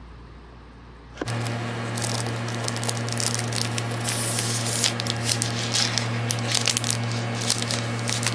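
Thin plastic protective wrap on a new laptop being handled, crinkling and rustling with many small crackles. It starts suddenly about a second in, over a steady low electrical hum.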